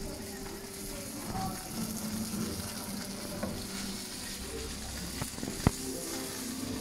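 Tuna sizzling in oil in a stainless steel frying pan, with a metal utensil clicking against the pan; a sharp metal clack near the end is the loudest sound.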